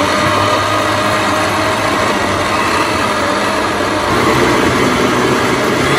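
Countertop blender with a glass jar running steadily, its motor whirring as it blends blackberries, banana and yogurt into a smoothie.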